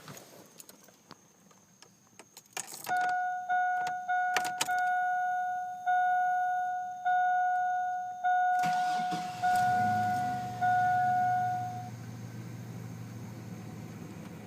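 A few key clicks and jingles, then a vehicle's dash warning chime sounds in about nine steady pulses. About eight and a half seconds in, the 4.3L Vortec V6 cranks, catches and settles into a steady idle while the chime stops.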